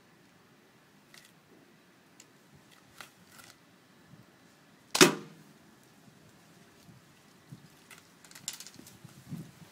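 A wrist-brace slingshot is fired once about five seconds in: a single sharp crack as a pellet is shot, trailing off briefly. A few faint clicks and rustles come before and after it.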